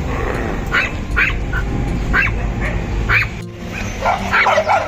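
Dogs barking: single short barks every half second or so, then a quick flurry of barks near the end.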